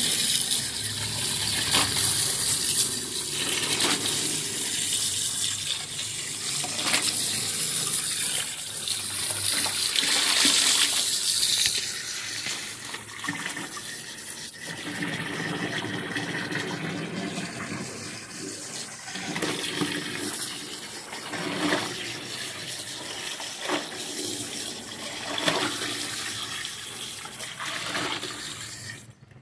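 Tap water pouring into a plastic bucket while clothes are hand-washed, scrubbed and wrung in the soapy water, with splashes and sloshing. The pouring is loudest for the first twelve seconds or so, then quieter.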